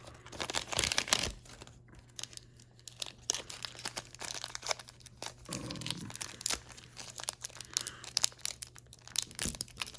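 Sealed trading card pack being torn open by hand: the wrapper crinkling and ripping in many small irregular tears, and the pack is hard to get open.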